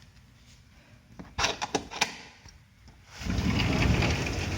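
A door unlatched and opened with a few sharp clacks, then a loud steady rushing noise from outside takes over about three seconds in.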